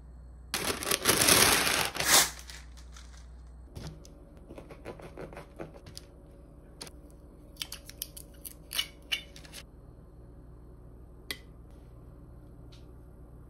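Kitchen knife cutting food on a wooden cutting board: a loud scraping rasp about half a second in that lasts under two seconds, then scattered light clicks and taps of the knife and hands handling food on the board and paper.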